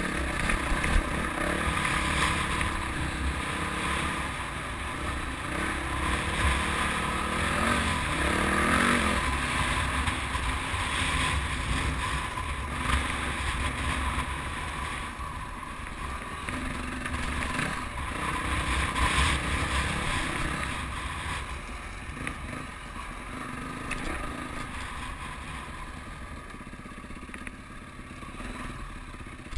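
Dirt bike engine running under changing throttle over rough trail, revving up and easing off repeatedly, somewhat quieter in the last third.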